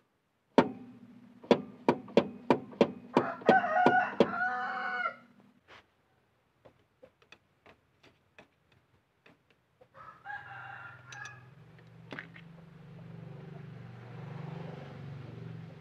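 About ten sharp metal taps in quick succession, a screwdriver knocking at the steel dust cap on a car's rear wheel hub to loosen it. A rooster crows twice in the background, and a low steady hum sets in near the end.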